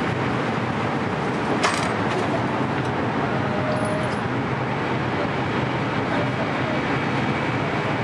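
Steady air-and-machinery noise of an indoor shooting range, its ventilation and the motorized target carrier bringing the paper target up to the booth, with one sharp click about one and a half seconds in.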